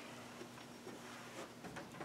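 Quiet room tone with a steady low hum, and faint rustling of sheets of paper being handled, with a few soft knocks late on.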